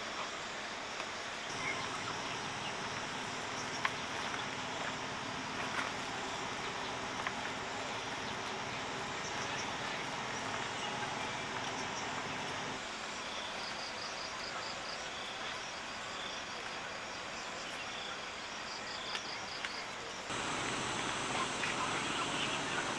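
Steady outdoor background noise with a few faint clicks, and short trains of rapid high chirps from insects or birds in the middle stretch. About twenty seconds in, the background suddenly becomes louder and fuller.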